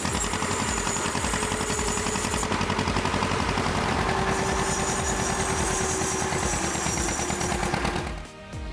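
A machine's engine running steadily with a rapid, even pulsing, then cutting off abruptly near the end.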